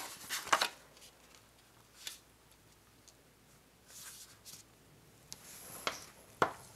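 Pre-scored white cardstock being handled and creased flat by hand: a few short paper rustles and light taps on the tabletop, with quiet gaps between them.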